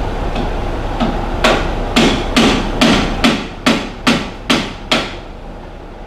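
Hammer striking metal about ten times, a little over two blows a second, each blow ringing briefly, while driving on suspension hardware during leaf-spring removal.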